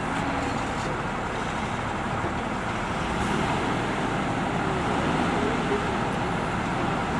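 Diesel engine of a JCB tracked excavator running steadily under working load as it swings its bucket, with no distinct knocks or impacts.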